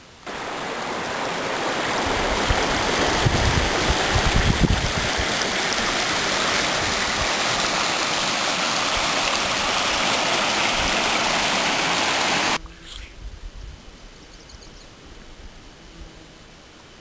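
Small rapids of a woodland stream, water rushing and splashing over rocks in a steady loud rush. It starts suddenly and cuts off abruptly about twelve and a half seconds in, leaving only faint small sounds.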